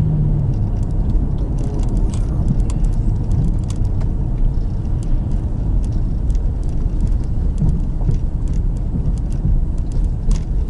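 A car driving on a rough road, heard from inside the cabin: steady engine and tyre rumble, with many small sharp rattles and clicks.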